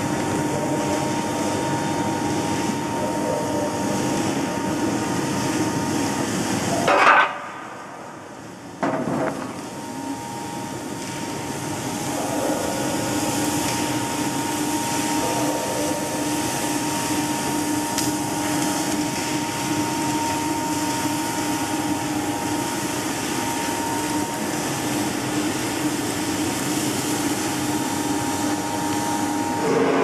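Sawdust briquette extruder, a screw press, running with a steady mechanical hum and rattle. About seven seconds in there is a short loud burst, then the noise drops away for about two seconds before the machine sound returns.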